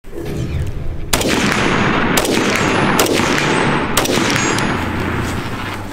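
Single gunshots from a CZ 805 Bren pistol in 5.56 mm, about five shots spaced roughly a second apart, each followed by a ringing echo.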